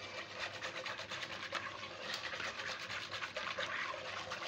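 Silicone whisk beating milk with cocoa powder and cornflour in a non-stick pot: a fast, continuous run of scraping, sloshing strokes as the powders are mixed into the milk.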